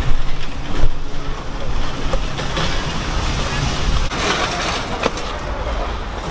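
Loaded metal shopping cart rattling as it rolls over concrete, with a low rumble of wind or traffic behind.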